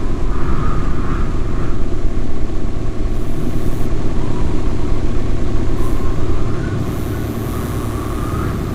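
Space-data sonification presented as the sound of planet Mercury: a loud, steady, low rumbling drone with faint warbling tones above it. About seven seconds in it drops somewhat in level and a high hiss comes in.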